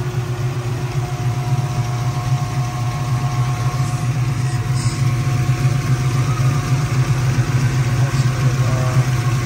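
The 5.3-litre LS V8 with a stage 2 cam, swapped into an Oldsmobile Cutlass, idling steadily, heard up close over the open engine bay.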